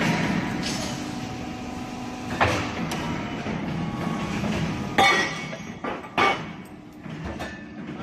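CNC angle-steel punching and drilling machine running with a steady mechanical hum. Three loud metallic clanks come about two and a half, five and six seconds in, with lighter knocks between them.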